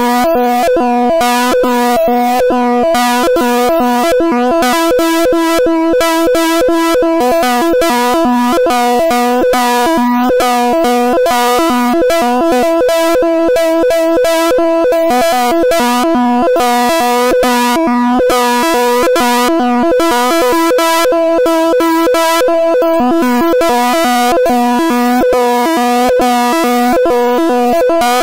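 Python-generated stereo audio signal that draws a rotating wireframe cube on an oscilloscope in X-Y mode, heard as a steady buzzing chord of several tones with a fast crackle over it. Its tone colour shifts as the cube turns.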